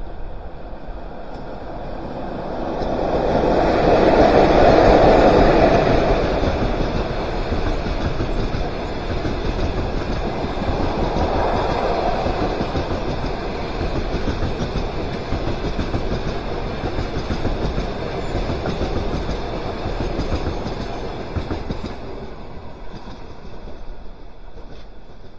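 Škoda-built ChS7 electric locomotive hauling an express passenger train passes at speed: a swell of noise as the locomotive goes by about four seconds in, then the steady rumble of the coaches' wheels on the rails, easing off near the end as the last coach passes.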